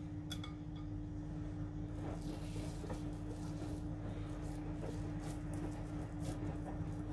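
A wooden skewer clinks once against a glass bowl, then a hand tears and squeezes raw minced meat in the bowl with soft, wet, squishing sounds, over a steady low hum.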